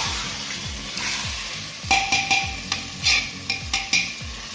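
A metal spoon stirring mutton pieces through sizzling masala in a pressure cooker while the meat is being roasted in the spices. About halfway through, the spoon strikes the pot's metal side several times in a row, with short ringing clinks.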